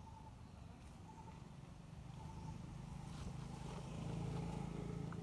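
A motor vehicle engine running nearby, its low hum growing louder through the second half, with a short high peep repeating about once a second above it.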